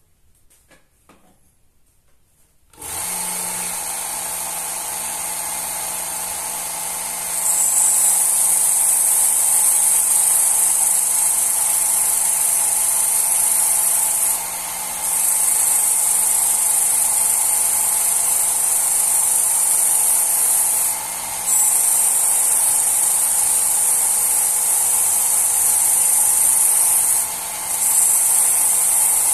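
Work Sharp electric belt knife sharpener switched on about three seconds in, running at its lowest speed with a steady hum. From about seven seconds a knife blade is drawn across the fine abrasive belt: a loud steady grinding hiss of steel on the belt, broken by short pauses about every six to seven seconds between strokes.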